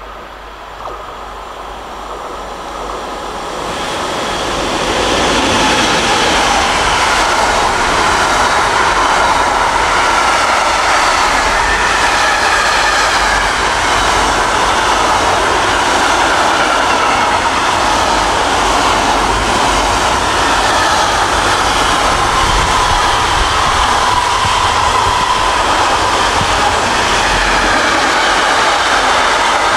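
Container freight train of loaded container flat wagons passing close by, the rumble and rush of steel wheels on the rails. It builds over the first five or six seconds as the train arrives, then holds steady and loud.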